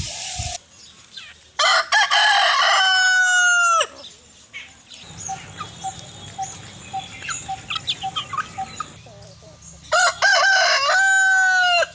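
A rooster crowing twice, a few seconds into the clip and again near the end, each crow a run of notes ending in a long held note that drops off at the close. Between the crows, a run of short, evenly spaced clucks, about two or three a second.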